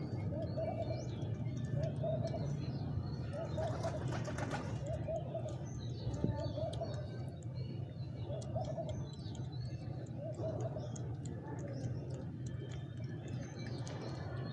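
Domestic pigeons cooing, a rolling coo repeated every second or two, over a steady low rumble. Small birds chirp faintly, and there is a brief rustle about four seconds in.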